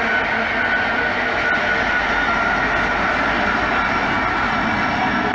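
Rear distributed-power BNSF diesel-electric locomotives of an empty coal train passing close by, engines running under a steady noise of wheels on rail, with a steady high tone over it.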